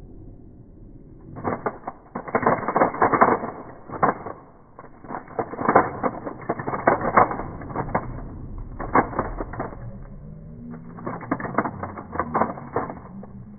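Plastic 3x3 speed cube (Cubesmith) being turned through a T-perm, played back slowed down: dense clicking and rattling of the pieces as the layers turn, in four runs with short pauses between.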